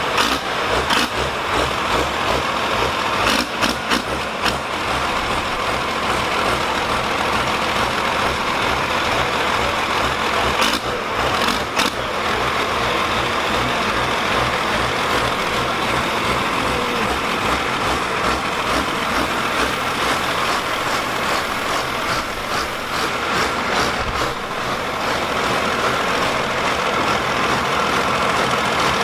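Cummins diesel engine of a two-wheel-drive Ford pulling truck idling steadily.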